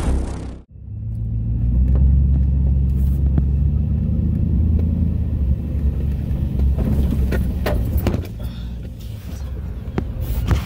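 Chevrolet Silverado pickup driving slowly over a rutted dirt trail, heard from inside the cab: a steady low rumble of engine and tyres, with a few knocks and rattles from the truck's body over uneven ground. Intro music cuts off sharply under a second in.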